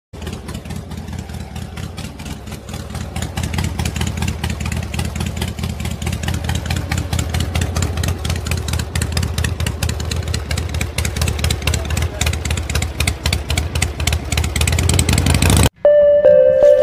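Tractor engine running with a rapid, steady chug, growing louder about three seconds in and again toward the end, then cutting off abruptly; music starts just before the end.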